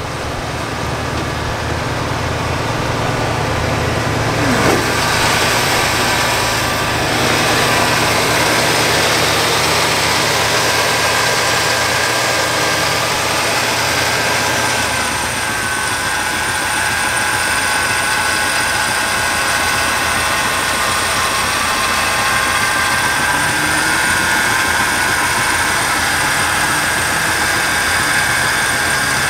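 Small-block Chevy V8 idling under an open hood while its ignition timing is nudged up at the distributor; the idle note shifts a little about halfway through.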